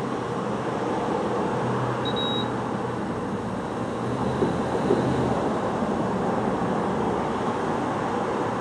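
Steady traffic and street noise with a low hum, and one short high beep from the fuel pump about two seconds in.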